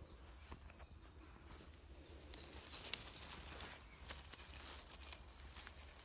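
Faint crackling and rustling in forest leaf litter, with scattered small clicks: footsteps and hands moving through the leaves while gathering mushrooms.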